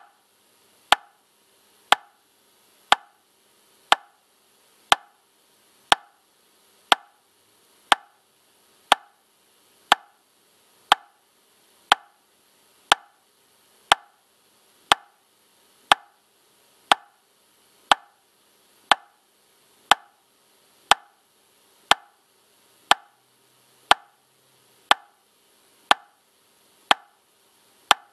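Metronome clicking steadily at 60 beats per minute, one sharp click a second with a short ring after each. Every click is equally loud, with no accented beat.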